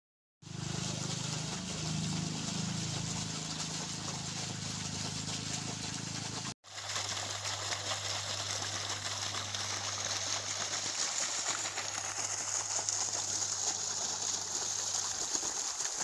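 Water gushing steadily from a pipe outlet onto the ground and running into an earth channel, over a low steady hum. The sound drops out briefly about six and a half seconds in, and a high steady whine joins about twelve seconds in.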